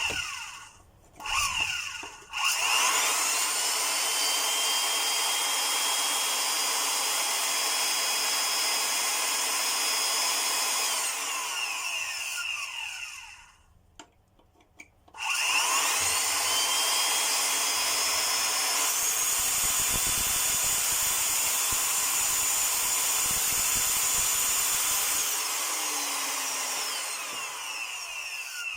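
Samsung vacuum cleaner's brushed motor with newly fitted bearings, run at reduced speed through a kettle wired in series: after a couple of short blips it spins up with a rising whine, runs steadily for about nine seconds, winds down and stops, then is started again and runs another ten seconds before winding down near the end. The repairer judges it to run well, at least so far.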